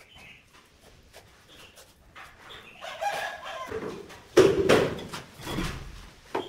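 Steel trowel scraping and scooping cement mortar from a bucket and spreading it on a tile, with small clicks and scrapes and one loud scrape and clatter about two-thirds in.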